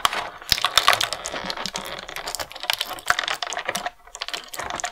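Clear plastic blister tray of toy packaging crinkling and crackling as hands flex it to pop out a small accessory: a dense run of sharp crackles and clicks.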